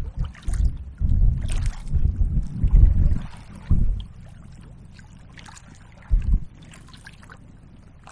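Small waves lapping and slapping against the hull of a drop-stitch inflatable kayak, with wind gusting in uneven low rumbles that are heaviest from about one to four seconds in and again briefly near six seconds.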